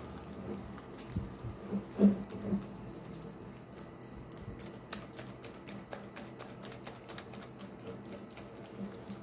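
Coil whisk clicking rapidly against the side of a glass bowl as it stirs yeast into warm milk to dissolve the lumps, with a few louder knocks about two seconds in.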